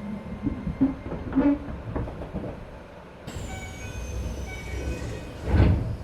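Onboard running sound of a Keisei 3050 series electric train: wheels knock and rumble over the rails. About halfway in, the Toyo IGBT VVVF inverter cuts in with a set of high steady tones, one of them falling in pitch, as the train brakes for the next station. A loud thud comes near the end.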